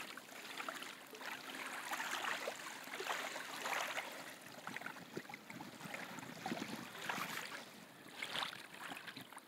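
Small waves lapping against a reedy shoreline in uneven washes.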